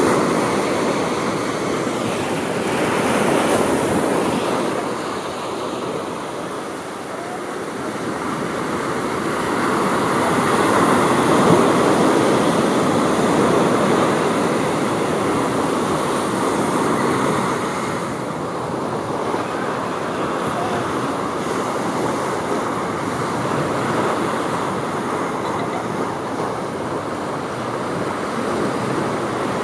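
Ocean surf breaking on a sandy beach: a continuous rush of waves that swells and eases, loudest around ten to twelve seconds in.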